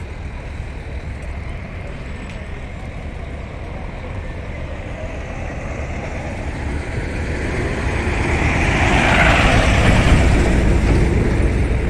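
A motor vehicle's engine over a steady low rumble, growing louder to a peak about nine to ten seconds in, then easing slightly.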